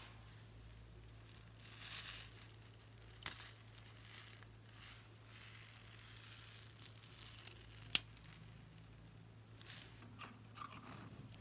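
A plastic bag of small red beads crinkling and rustling as the beads are poured out onto slime, with two sharp clicks about three and eight seconds in.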